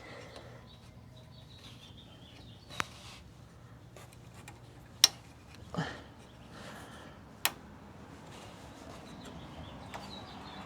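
Three sharp clicks and a duller knock from small metal and plastic fasteners and tools being handled while the grille hardware is taken off. Faint high chirps sound in the background.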